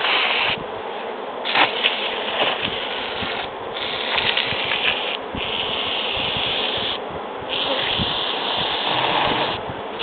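Aerosol bug spray hissing in about five bursts of one to two seconds each over the frames of a bee hive, killing the bees of a colony with American foulbrood.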